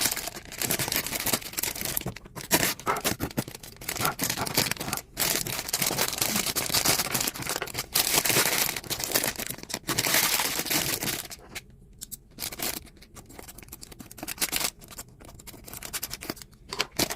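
Packaging being torn open and crinkled by hand, dense rustling for most of the time, then quieter rustle with small sharp clicks for the last few seconds.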